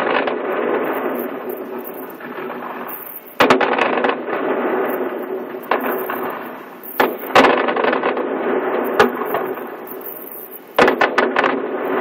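Fireworks display: sudden bangs about three and a half seconds in, around seven seconds and near eleven seconds, each followed by several seconds of dense crackling.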